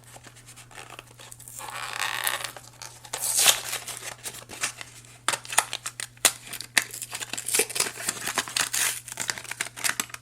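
Hands picking Play-Doh off a small plastic toy car and handling crinkly plastic: rustling and crinkling with many quick light clicks and taps.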